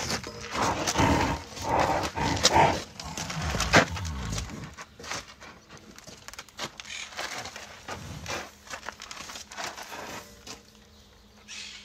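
White rhinoceros breathing close to the microphone: a run of loud blowing breaths through the first four seconds or so, then quieter.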